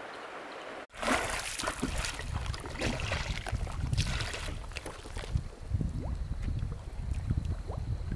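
River water trickling steadily, cut off about a second in by water splashing and lapping around a raft as a bamboo pole is pushed into the river, with wind rumbling on the microphone.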